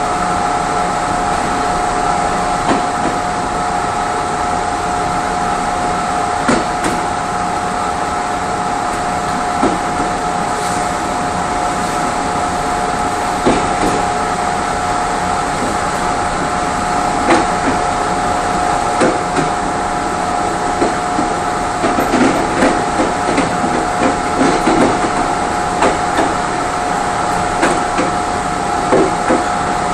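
Passenger coach of a Mugunghwa-ho train running along the track, heard from inside the car: a steady hum with two held tones, broken by irregular clacks and knocks of the wheels over rail joints and points. The knocks come thicker about two-thirds of the way through.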